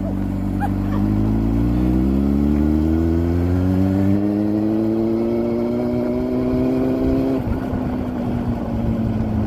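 Motorcycle engine pulling under acceleration, its pitch rising steadily for several seconds. About seven seconds in it drops abruptly and then eases lower.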